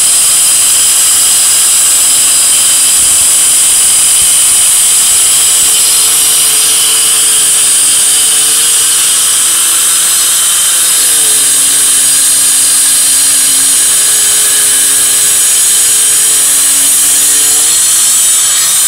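Handheld electric stone cutter with a diamond blade wet-cutting through a pale stone slab. It gives a loud, steady high-pitched whine, and the motor's pitch sags briefly about ten seconds in as it bites under load.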